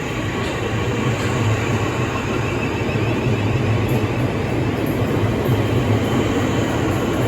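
Southeastern class 465 Networker electric multiple unit running through the station, a steady rumble of traction and wheel noise on the rails.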